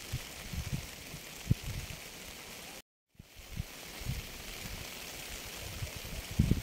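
Steady rain hiss with irregular low thumps mixed in. The sound drops out completely for about a third of a second just before three seconds in, then comes back.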